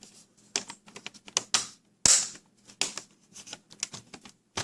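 Plastic screen bezel of a Dell Inspiron M5010 laptop being pressed back on, its clips snapping into place in a series of sharp clicks, the loudest about two seconds in.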